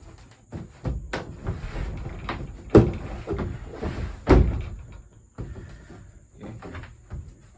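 Rubbermaid plastic resin shed panels being knocked and pushed into place during assembly: a string of irregular knocks and clatters, with two louder thumps about three and four and a half seconds in.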